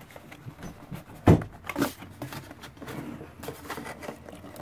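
Cardboard subscription box being handled and folded inside out: scraping and rustling of the card, with two louder knocks about half a second apart a little over a second in.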